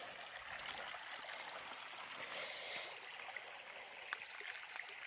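A stream running with a faint steady trickle while water is scooped and poured into a water filter's collection bag, with a brief brighter splash of pouring about halfway through.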